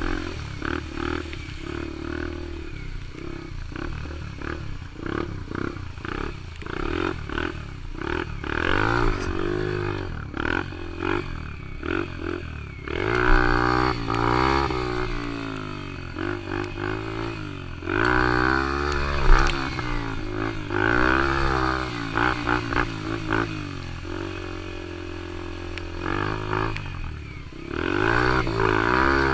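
Yamaha TT-R125 dirt bike's single-cylinder four-stroke engine being ridden, its revs rising and falling again and again as the throttle is opened and closed.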